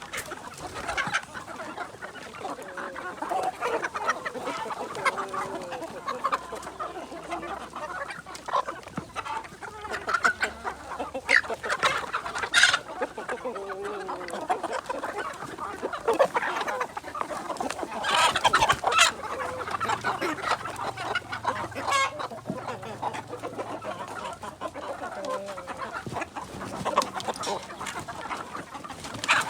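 A flock of kampung chickens (Indonesian native free-range chickens) clucking continuously, with several louder, sharper calls standing out.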